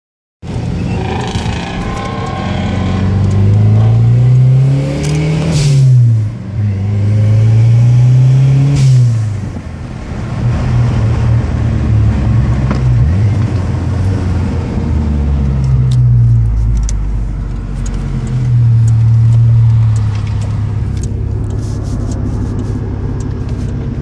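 Car engine accelerating hard, heard from inside a car's cabin. Its pitch climbs and drops sharply twice in the first ten seconds, then it runs on at a lower, steadier pitch with a couple of milder pulls.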